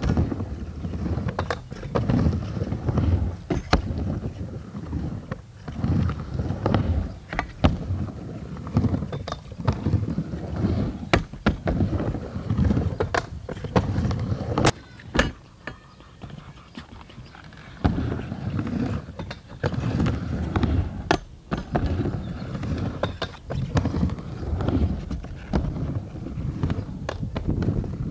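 Skateboard wheels rumbling as the board rolls, with sharp clacks of the board hitting the riding surface. The rumble eases off for a few seconds a little past the middle.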